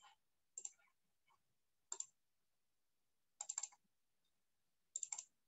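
Faint computer mouse clicks in five short groups, single clicks at first and quick runs of several clicks in the last two groups.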